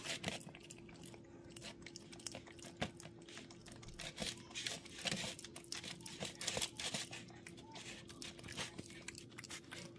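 A cat chewing and biting at food, with many small irregular wet clicks and crunches and some crinkling, over a faint steady hum.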